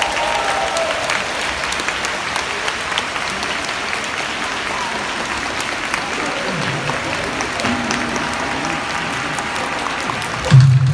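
Large stadium crowd applauding, a steady wash of clapping heard from high in the stands. Just before the end, loud music with a heavy low beat cuts in.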